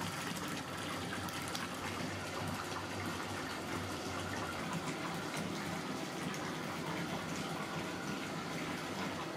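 Bath tap running full into a filling bathtub, water gushing steadily into the foamy bathwater.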